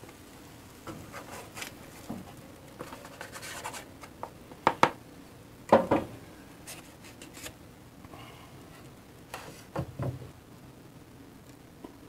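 Plastic spatula scraping in a nonstick frying pan and knocking against a paper plate as an omelet is slid out onto it. Scattered scrapes with a few sharp knocks, the loudest about five to six seconds in.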